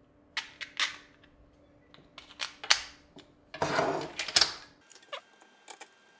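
Small machine screws and a plywood motor mount handled on a tabletop: a run of light clicks and taps, with a sharper clack a little under three seconds in and a longer rustling stretch around four seconds.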